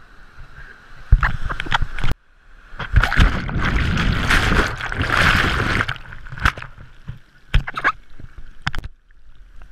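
Breaking surf washing over a waterproof action camera as it is tumbled under the water: a loud rushing churn of water against the housing, cut off suddenly about two seconds in, a longer churning rush a second later lasting about three seconds, then several sharp knocks and splashes near the end.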